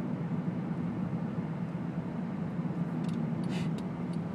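Steady road and engine noise of a moving car heard from inside the cabin, a low even rumble, with a short hiss about three and a half seconds in.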